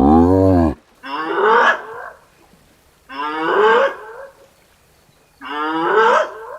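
Hyena calling four times: a short arched call at the start, then three rising calls about two seconds apart.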